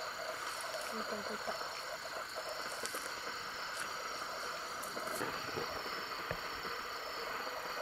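Crickets and other night insects chirping steadily, with a few faint clicks.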